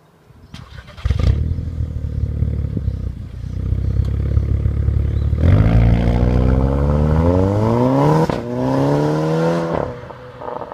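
Volkswagen Golf R Mk6's turbocharged 2.0-litre four-cylinder heard through its valved exhaust. It starts about a second in and idles, then is revved twice with a steadily rising pitch, the second rev shorter, before falling back to idle near the end.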